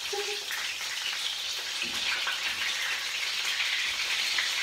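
Perkedel (potato fritters) frying in hot oil in a pan: a steady, dense crackling sizzle.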